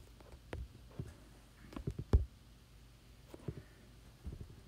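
Scattered light taps and knocks, a dozen or so at irregular intervals with the loudest about two seconds in: an iPad being handled and its screen tapped while it is propped against a ruler on a desk.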